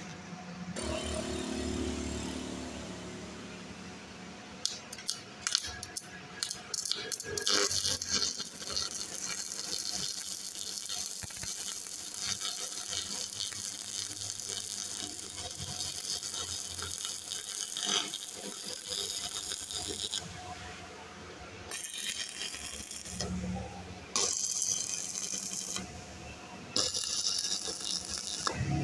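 Stick (shielded metal arc) welding on steel bars: the electrode's arc crackles and sizzles steadily in several runs, starting about a second in and broken by a few short pauses.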